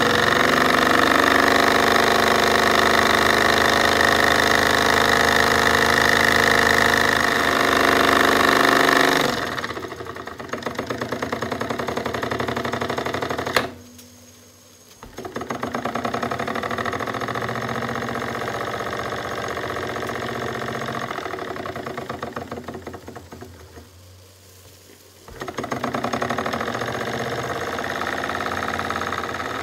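Jensen 25G model steam engine running with a fast, even chuff, steady at first, then slowing into separate beats. With a sharp click it stops about halfway through, starts again a second later, runs down and stops briefly once more, then picks up and runs on.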